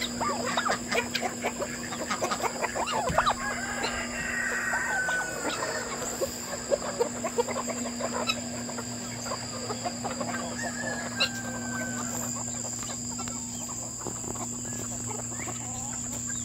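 A large flock of free-range chickens, hens and roosters together, clucking and calling over one another without a break, with a few longer drawn-out calls mixed in.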